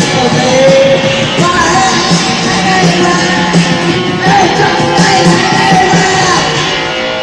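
A noise-rock band playing loud and raw live, a dense wall of electric guitar and drums with yelled vocals.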